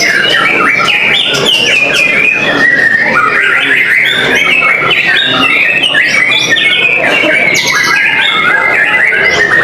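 Several white-rumped shamas (murai batu) singing at once: a dense, loud tangle of quick, overlapping whistled phrases and trills.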